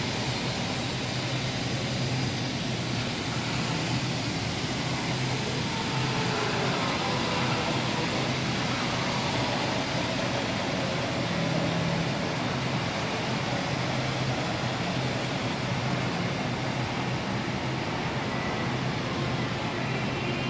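Steady mechanical drone and hiss of supermarket machinery: refrigerated display cases and air handling, with a low hum, and a Tennant robotic floor scrubber running as it moves off down the aisle.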